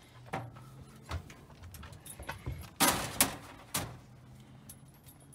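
Latch and door of a metal dog crate being worked open: scattered clicks and rattles, then a loud pair of clanks about three seconds in and a last clack a little later.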